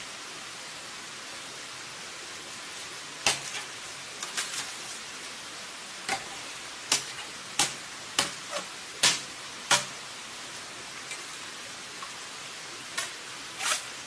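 About a dozen sharp strikes of a long-handled digging tool into the ground, coming irregularly from a few seconds in, over a steady hiss.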